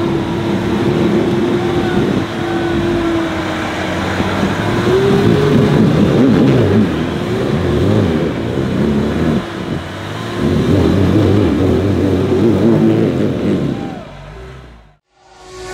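Nissan Patrol 4x4 engine revving up and down in bursts as it claws up a muddy slope on a winch line, with a steady whine through the first few seconds. The sound fades out near the end.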